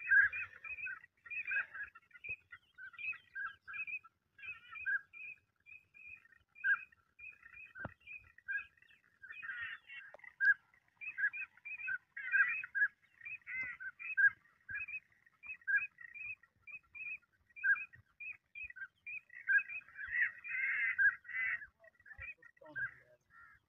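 Birds calling in a steady stream of short, high chirping notes, several a second, with a thicker patch of calls near the end.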